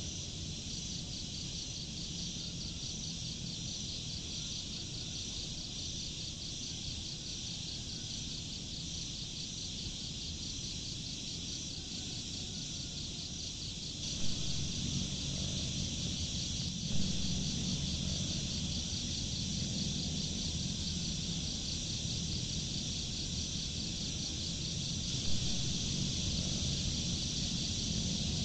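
Dense, continuous chorus of crickets and other insects trilling high and steady. A low rumble swells about halfway through, and a few brief knocks stand out.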